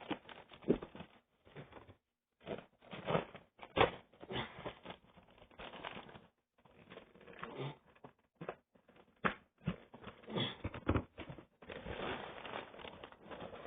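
Packaging being handled and opened by hand: irregular rustling, crinkling and clicking in short bursts with brief pauses between them.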